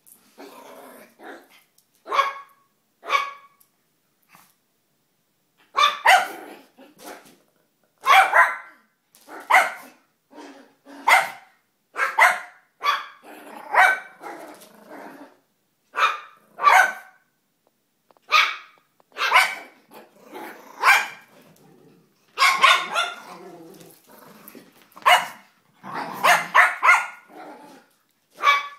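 Small dogs barking in play, short sharp barks coming every second or so, often in quick pairs or triplets, after a brief lull early on.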